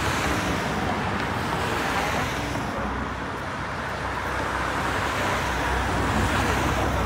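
Ambulance vans and other convoy vehicles driving past on the road: steady engine and tyre noise, rising again near the end as one comes close.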